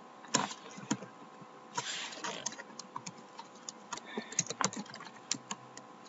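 Typing on a computer keyboard: irregular key clicks in small groups with short pauses, as a short word is entered.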